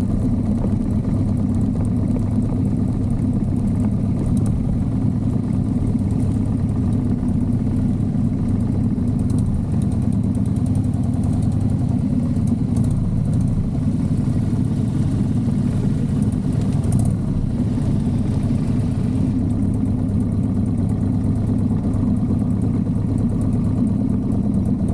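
Motorcycle engine running steadily at an even pitch, without revving up or down.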